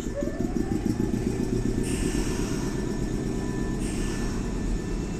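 Nankai electric train moving off along the platform: its motors' whine rises in pitch in the first second over a steady rumble of wheels on rail, with a high hiss that comes in twice.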